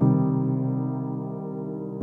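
Background music: slow, held chords, one struck at the start and fading away, the next coming in right at the end.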